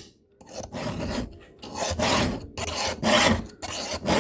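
Round file rasping across chainsaw chain cutter teeth in repeated hand strokes: a strong stroke about once a second, each followed by a lighter one, sharpening the cutters' top plates.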